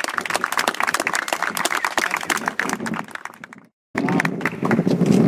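Audience applauding with dense, irregular clapping for about four seconds, then cut off abruptly; a low, steady rumbling noise follows.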